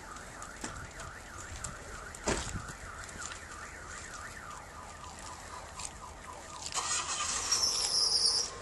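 A car alarm sounding with a fast, repeating up-and-down warble. A single thump comes about two seconds in, and near the end a louder rushing noise with a high squeal takes over.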